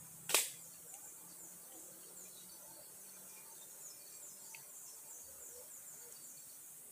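Insects chirping steadily in a high, rapid pulsing chorus, with one sharp crack about a third of a second in.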